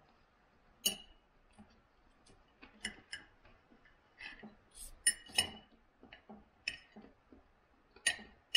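Knife and fork clinking and scraping on a plate as food is cut, in scattered, irregular clinks; the loudest come about five seconds in.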